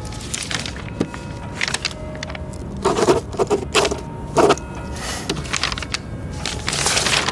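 Papers rustling and shuffling on a desk, and a pen scratching across paper as a document is signed: a run of irregular short rustles and scrapes, the strongest about halfway through.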